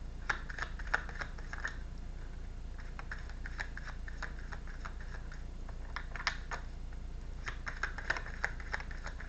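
Quick, light clicks and taps in irregular clusters, typical of tarot cards being shuffled and handled. A steady low hum runs underneath.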